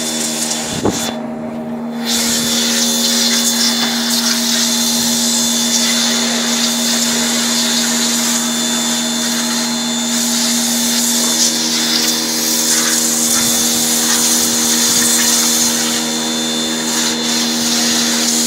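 Pressure washer running, its motor and pump giving a steady hum under the hiss of the high-pressure water jet spraying onto a car's windows and body. The sound is a little weaker for the first couple of seconds, then holds steady.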